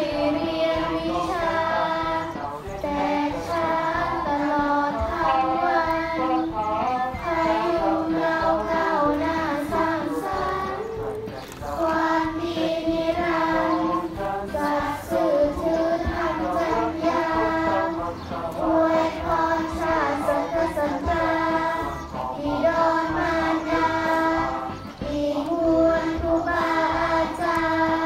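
A group of children singing together: a slow song with long held notes and short breaks between phrases.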